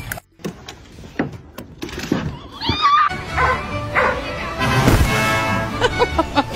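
Dogs barking and yipping in short calls over music, with the calls bunched near the end.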